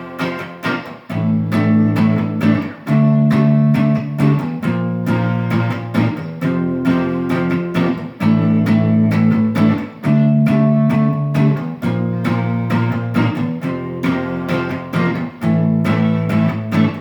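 Instrumental break in a song: guitar chords over a steady, even beat, with no singing.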